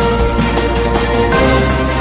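News-bulletin intro theme music, loud, with sustained chords over a deep bass that move to a new chord about a second and a half in.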